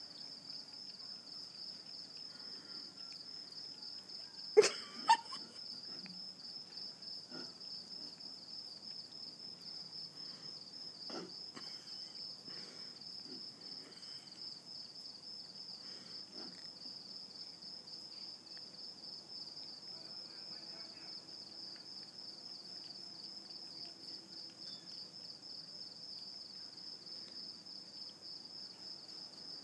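Crickets chirping in a steady, high-pitched, rapidly pulsing chorus. Two sharp clicks about four and a half and five seconds in are the loudest sounds.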